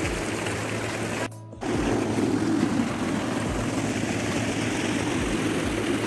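Fast water rushing steadily through a narrow concrete channel, with a short break in the sound about a second and a half in.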